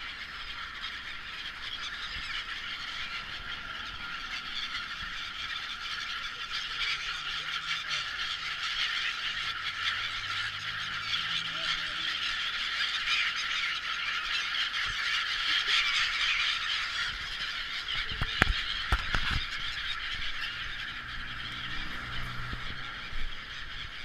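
A large flock of gulls calling continuously, many overlapping calls merging into a dense chatter. A few dull knocks come about three quarters of the way through.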